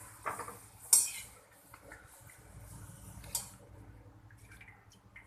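Pappad frying in hot oil: two short sizzling bursts, about a second in and again past three seconds, among light clinks of a utensil against the pan.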